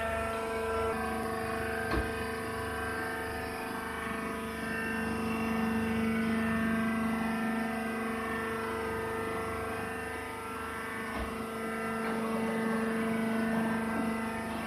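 Hydraulic coconut-fiber baler's electric motor and hydraulic pump running with a steady, even hum, with a single light knock about two seconds in.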